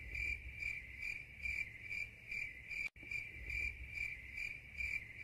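Cricket chirping steadily, about two chirps a second, used as the stock 'awkward silence' sound effect. The loop breaks off for an instant about three seconds in.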